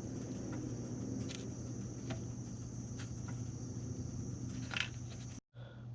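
A few faint, scattered light clicks of small metal reel parts being handled and fitted together, over a steady low hum and a thin high steady tone; the sound cuts out briefly near the end.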